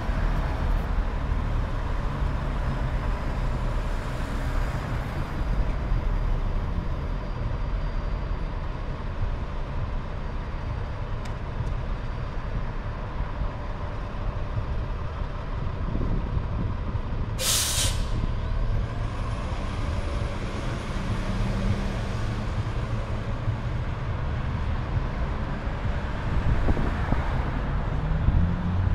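Steady low rumble of street traffic, with one loud, short hiss of released air about two-thirds of the way in: the air brakes of an articulated Muni electric trolleybus at the stop.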